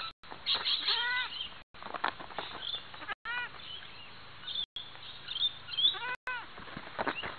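Three short animal calls, each rising then falling in pitch, about a second, three and a half and six seconds in, over scattered light taps of goat hooves on a trampoline mat.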